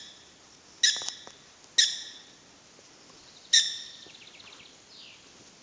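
Prairie dogs calling with sharp, high-pitched chirping barks: three loud calls spaced about one to two seconds apart, the last one followed by a quick run of fainter chirps.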